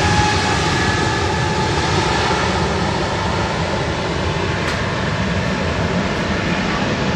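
Jet engines of a Boeing 737-800 converted freighter, CFM56 turbofans, running with a loud, steady roar and a faint whine over it.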